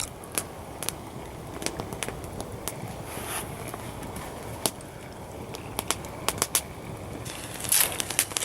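Campfire crackling, with irregular sharp pops scattered throughout and a louder cluster near the end.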